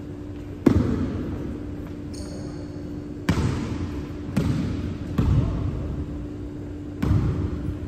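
A basketball bouncing on a hardwood gym floor, five separate bounces at uneven intervals, each echoing in the large hall. A steady low hum runs underneath.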